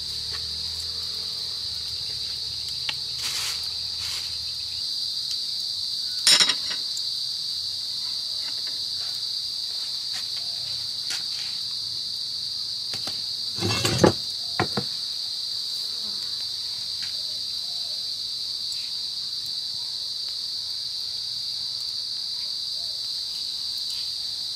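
Steady high-pitched insect chirring, with a few sharp knocks, the loudest about fourteen seconds in.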